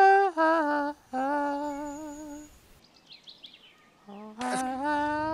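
A person humming: a few short wavering notes, then after a pause a click and one long held note near the end.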